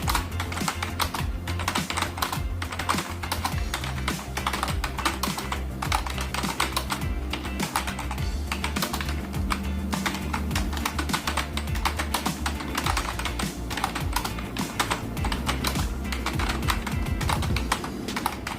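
Fast, continuous typing on a computer keyboard, many irregular keystroke clicks a second, over background music with a steady bass line that drops out near the end.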